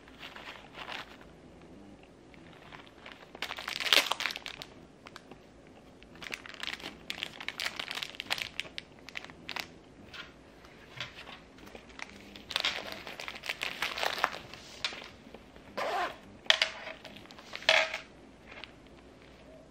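Hands crinkling and rustling a four-ply pocket tissue, then handling a small plush pouch: irregular bursts of paper and fabric rustling, loudest about four seconds in and twice near the end.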